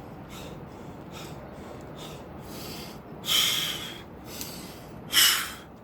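A man breathing hard during burpees: faint, quick breaths about twice a second, then two loud, forceful exhalations about two seconds apart.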